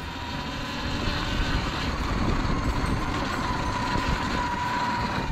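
Sur-Ron Light Bee electric dirt bike being ridden on desert dirt: steady wind rush and ride noise, with a thin high whine that holds steady and creeps slightly higher.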